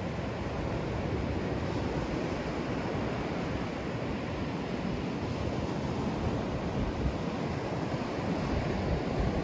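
Steady rushing outdoor noise of wind buffeting the microphone, mixed with the wash of sea surf.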